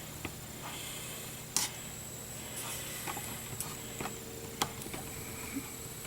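Quiet room tone with a faint steady hum, broken by a few light clicks and taps, two of them sharper than the rest.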